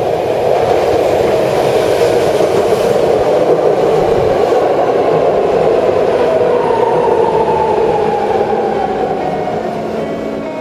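A BART rapid-transit train pulling into a station and slowing alongside the platform, with loud, steady wheel and rail noise. In the second half a whine falls in pitch as the train brakes.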